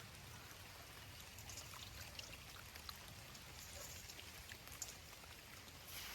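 Faint trickling water with scattered small drips.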